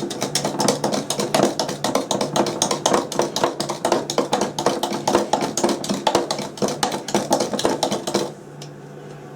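Runny meringue mixture being beaten by hand in a bowl: a utensil clicks rapidly against the side, about six strokes a second, stopping about eight seconds in.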